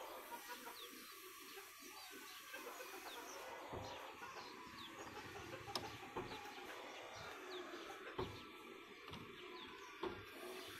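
Quiet outdoor ambience with small birds chirping faintly now and then, and a few soft knocks.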